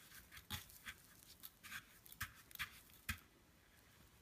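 Faint, irregular scratchy rustles of homemade breadcrumbs as a breaded chicken strip is pressed and turned in them on a plate, dying away near the end.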